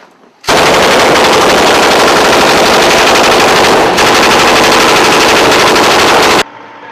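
Long, very loud burst of automatic machine-gun fire at close range, laid down as suppressive fire; it starts about half a second in, breaks for an instant near the middle, and cuts off abruptly near the end.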